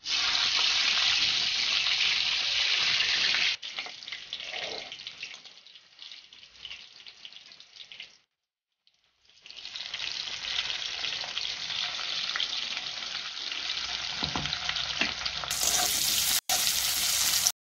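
Green chillies and tempering spices sizzling in hot oil in a kadai: loud at first, then dying down. After a short break, freshly added sliced onions sizzle in the oil as they are stirred, growing louder near the end.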